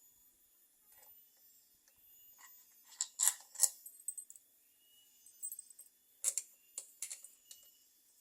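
Small metal parts being handled, giving scattered sharp clinks with a light metallic ring: a cluster about three seconds in and another about six to seven seconds in.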